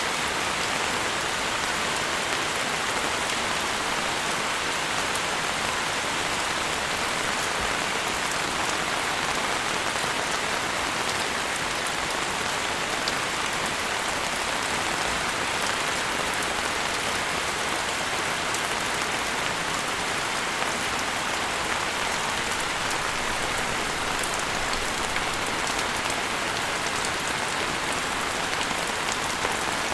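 Steady rain falling: an even hiss of many drops that neither builds nor fades.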